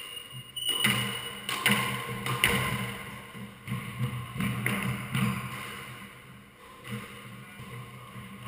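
Squash rally: the ball struck by rackets and smacking off the court walls, a sharp echoing hit about every second.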